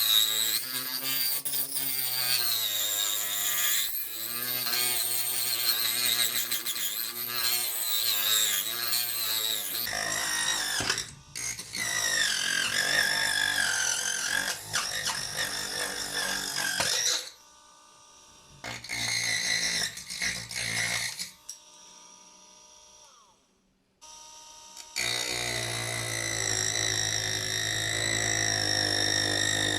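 Homemade cordless mini drill's DC 775 motor whining, its pitch wavering up and down as it is loaded. It drops away for several seconds past the middle, then runs steadily again near the end.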